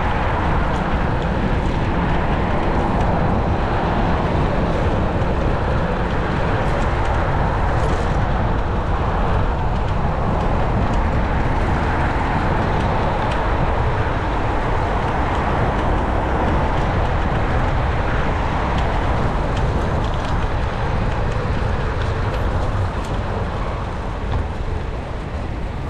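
Steady rush of wind and tyre rumble from riding a NIU KQi3 Pro electric scooter, easing a little near the end.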